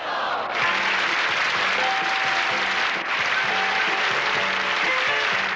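Studio audience applauding, with music playing underneath.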